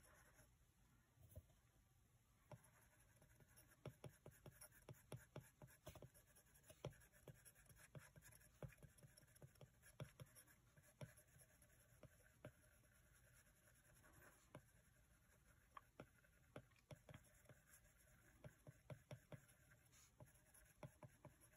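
Faint, irregular light taps and short scratchy strokes of a stylus tip on an iPad's glass screen while shading in a drawing.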